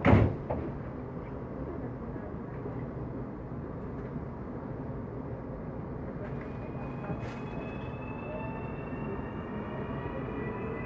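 Inside a CPTM Série 8500 electric train car: a loud thump right at the start, then a steady running rumble. From about six seconds in, a whine from the traction drive slowly rises in pitch as the train gathers speed.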